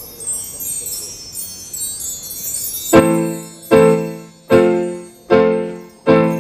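A shimmering run of high chimes for about three seconds, then a live band's keyboard striking loud chords on a steady beat, about one every three quarters of a second, each ringing and fading before the next.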